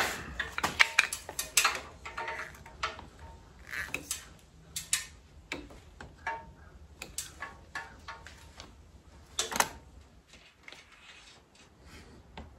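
Irregular light clicks, taps and rattles of small metal motorcycle parts being handled while working on throttle cables and their fittings, with one louder knock about nine and a half seconds in.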